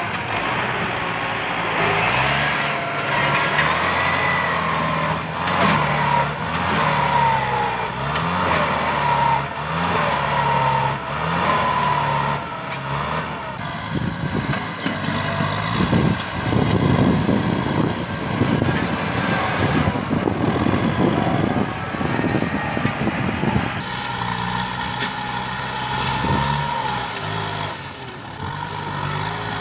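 Kubota tractor's diesel engine working under load, its pitch rising and falling again and again as the front blade pushes over brush and small trees. Through the middle stretch, a rough crackle of branches and brush breaking is mixed in.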